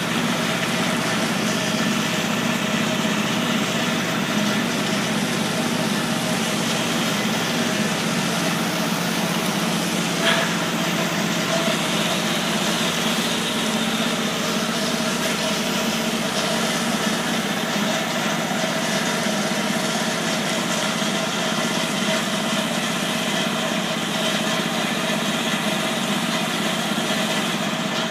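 Truck-mounted hydroseeder's engine running steadily, driving the pump that blows soil slurry through a spray gun, with a steady hiss over the engine hum. A single short click about ten seconds in.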